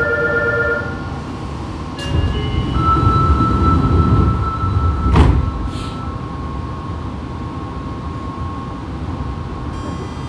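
Fukuoka City Subway 2000 series car standing in a station, heard from above its underfloor equipment. A low rumble and a sharp clunk about five seconds in are followed by a faint steady electrical whine.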